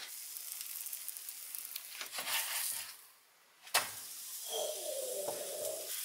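Naan dough sizzling and frying in olive oil in a hot cast iron skillet. The sizzle breaks off briefly about three seconds in, a sharp click follows, and the sizzle resumes.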